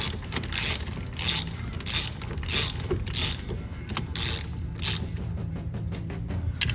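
Socket ratchet clicking in repeated back-strokes, about one every two-thirds of a second, as the 24 mm steering-wheel centre bolt is unscrewed. The clicks come quicker and closer together for the last couple of seconds.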